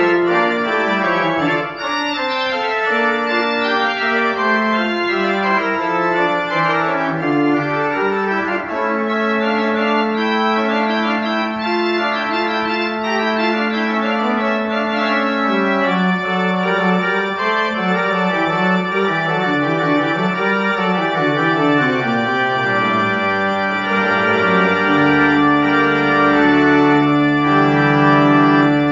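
Church pipe organ playing a recital piece: several moving lines over a long held note midway, then deep pedal notes enter near the end and the sound grows fuller and a little louder.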